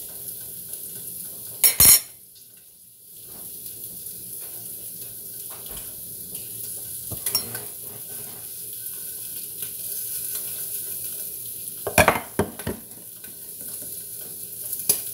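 Food sizzling steadily in a hot skillet, dipping briefly about two seconds in. A few sharp clinks and knocks are heard, the loudest about two seconds in and about twelve seconds in, as a glass of ice water is handled.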